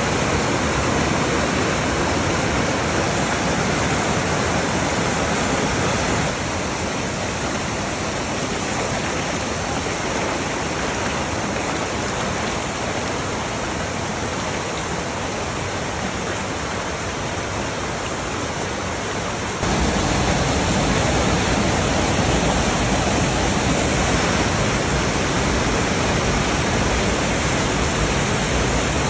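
Jungle stream's white water rushing steadily over rocky cascades at a waterfall. The rush dips slightly about six seconds in, then turns abruptly louder and deeper about twenty seconds in.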